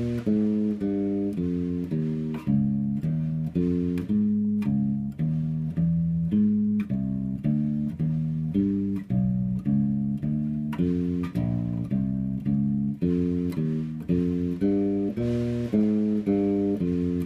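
Solo electric bass guitar playing a walking bass line: an unbroken stream of single plucked notes, about two a second, outlining each chord with its root, second, third and fifth.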